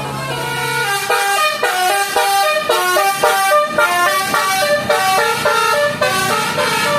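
Bus telolet horn, a Basuri multi-tone air horn, playing a fast tune of short stepped notes that gets louder and quicker about a second in.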